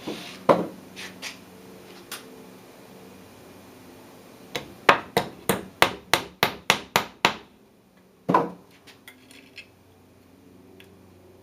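Quick sharp knocks, like light hammer taps on wood: a single knock about half a second in, then a run of about a dozen taps at roughly four a second, and one more knock a second later.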